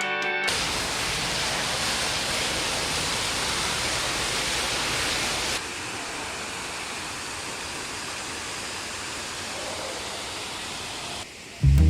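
Hot-spring waterfall rushing as a steady wash of falling water, which drops to a softer level about halfway through.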